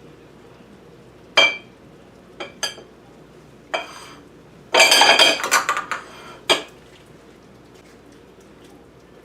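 Metal utensil clinking and scraping against cookware as seared beef is put back into the skillet. There are a few separate ringing clinks, then a dense flurry of knocks and scrapes about five seconds in, and one last clink.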